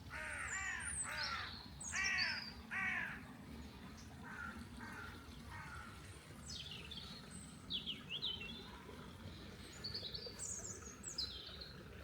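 A crow cawing: a quick series of harsh caws over the first three seconds, then a few fainter caws. After that a small bird gives high, quick chirps.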